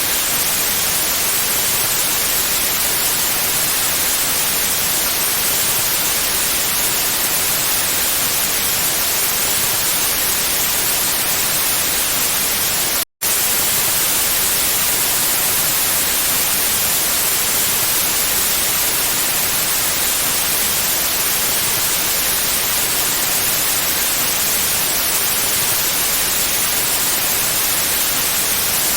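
Steady synthetic white noise, an even hiss without any tone or rhythm, cut by one split-second gap of silence about thirteen seconds in.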